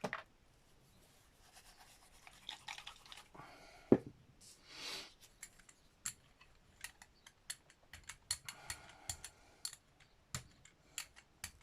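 Yellow acrylic paint being laid on and rolled out with a brayer for a light background on a gel printing plate. There is a sharp knock about four seconds in and a short hiss, then a run of quick, light, sticky clicks a few times a second.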